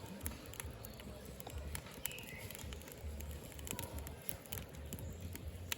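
Firewood burning in a Hillscam Firenado Large fire pit, crackling with irregular sharp pops over a low rumble.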